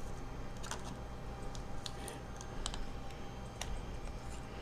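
Scattered small clicks and light scraping of a metal pry tool working under a glued-in smartphone battery, several separate ticks a second or so apart.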